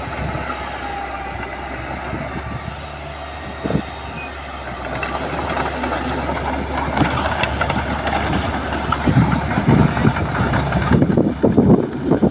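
Mitsubishi BD2J bulldozer running, its diesel engine droning steadily under irregular metallic clanking that grows louder and busier in the second half.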